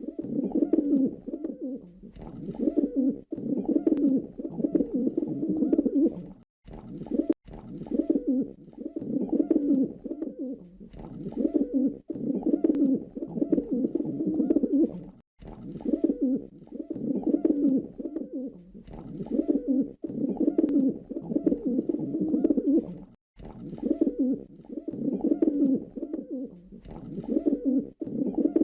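Pigeon cooing: low, throaty coo phrases repeated one every second or two, with a few brief dropouts.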